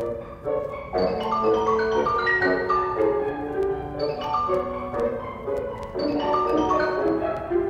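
Background music: a light tune of quick, short pitched notes.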